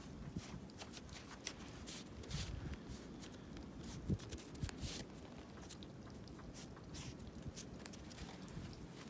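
Footsteps crunching softly in fresh snow, irregular small crunches with a few louder ones around the middle.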